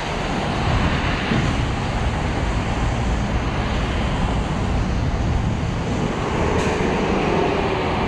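Steady rushing of wind over the microphone of a moving bicycle, mixed with tyres on wet pavement and city traffic, including a bus. There is a short sharp click about six and a half seconds in.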